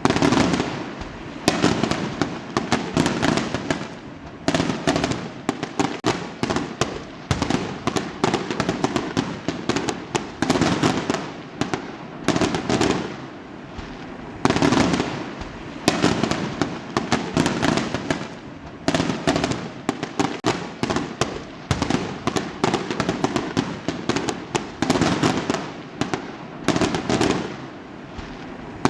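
Fireworks going off without a break: a dense stream of rapid crackling pops, swelling into louder clusters of bursts every second or two.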